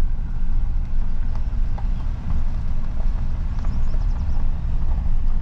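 Steady low rumble of a truck driving, heard from inside the cab, with faint irregular knocks.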